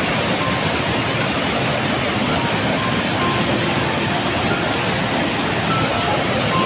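Waterfall: a steady, unbroken roar of falling water.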